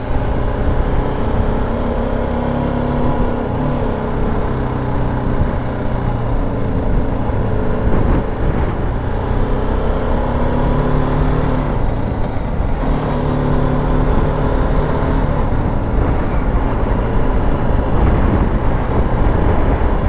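Motorcycle engine running while being ridden at low speed, its pitch stepping up and down as the rider speeds up and eases off, with wind rumbling on the microphone.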